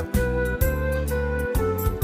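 Instrumental background music: held notes over a steady bass line, changing every half second or so.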